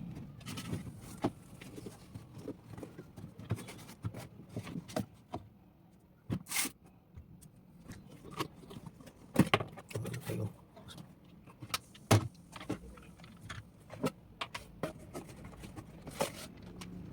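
Handling and opening a toy's cardboard box and plastic packaging: scattered rustles and scrapes with irregular sharp clicks and knocks, a few of them louder.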